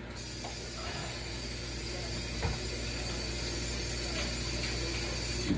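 Kitchen tap running into the sink for hand washing: a steady hiss of water that comes on suddenly and shuts off suddenly at the end.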